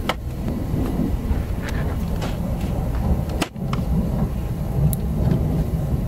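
A steady low rumble with scattered light clicks and taps from a window air conditioner's plastic housing and fan parts being handled during reassembly. The sound drops out briefly a little past halfway through.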